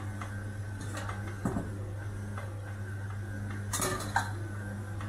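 Stand mixer running steadily with a low hum as it kneads pierogi dough, while a few clinks and knocks of utensils on a steel counter sound over it, the sharpest around four seconds in.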